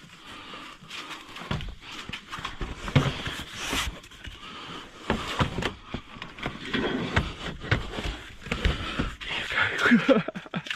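Irregular knocks, bumps and rustling of salvaged gear being shifted and packed into a vehicle, with a few louder thuds scattered through.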